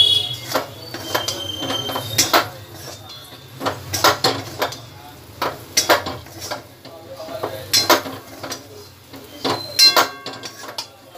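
Flat metal spatula scraping and knocking against a metal kadai as a thick chana dal and sugar mixture is stirred and turned, in irregular strokes and clusters of clicks. A low steady hum runs underneath.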